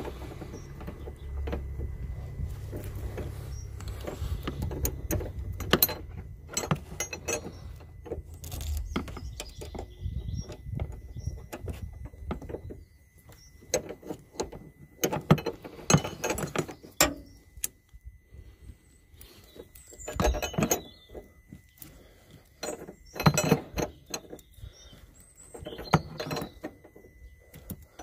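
Metal clicks and clinks from a wrench working the nut on top of the front shock absorber mount, coming in irregular bursts. A low rumble runs underneath for roughly the first dozen seconds.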